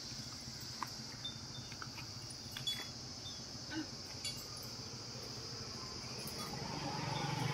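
Insects droning steadily in the trees in a high, even buzz, with a few faint clicks and tinkles. A low hum grows louder near the end.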